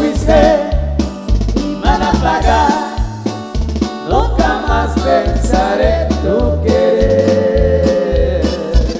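Upbeat dance-band music with a bouncing bass line, changing notes about twice a second, under a wavering lead melody that holds one long note near the end.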